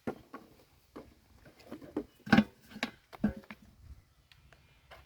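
Irregular short knocks and rustles, the loudest a little past two seconds in.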